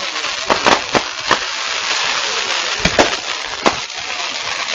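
Continuous crackling hiss with sharp pops and cracks: a cluster in the first second and a half, and a few more around three seconds in.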